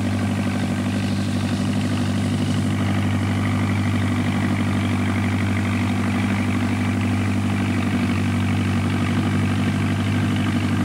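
A steady low droning hum made of several held pitched tones, unchanging in pitch and level, like an engine idling.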